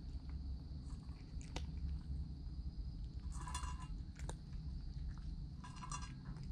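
A cat eating from a stainless steel bowl, chewing and crunching its food in two short bursts, about three and a half and six seconds in, with a few single clicks between.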